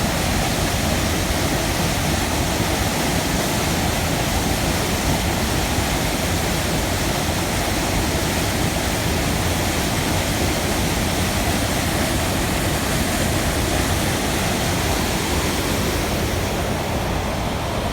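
River water rushing steadily, a constant even roar of moving water.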